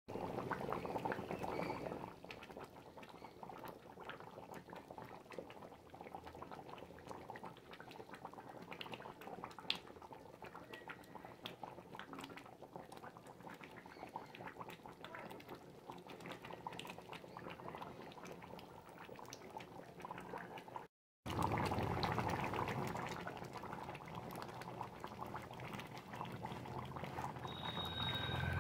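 Chicken and potato curry simmering in a metal pan, the thick gravy bubbling and popping in a steady run of small plops. The sound drops out for a moment about three quarters of the way through, then returns louder.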